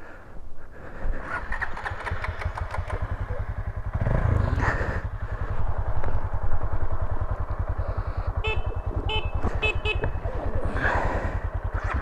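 Single-cylinder dual-sport motorcycle engine running at idle with an even, rapid beat, briefly a little louder about four seconds in.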